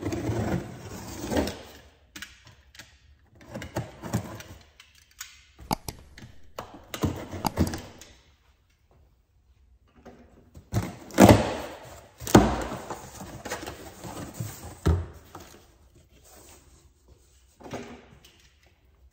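Cardboard shipping box being opened by hand: packing tape slit and torn and the flaps pulled open, with crackling, rustling and scattered knocks and thunks. After a short pause near the middle come the loudest thunks.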